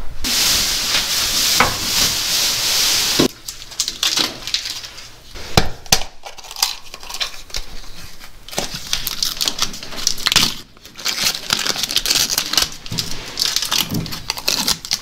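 Blue painter's tape being peeled off freshly painted tractor parts: one long ripping pull for about the first three seconds, then shorter tearing and crinkling as the tape comes off in pieces.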